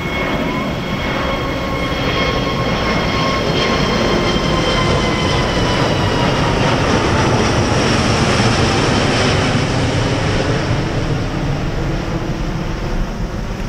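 Airbus A380-800's four jet engines climbing out after takeoff and passing overhead: a loud rumble with whining tones that slowly fall in pitch. It is loudest about eight seconds in and eases off slightly near the end as the airliner climbs away.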